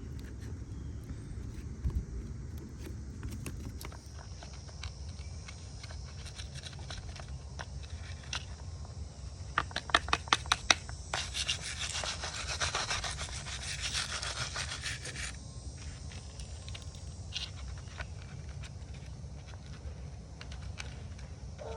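Cleaning sawdust and bar-oil gunk off a battery chainsaw: rubbing and scraping, with a run of sharp clicks about ten seconds in, then a few seconds of dense scrubbing hiss that stops suddenly.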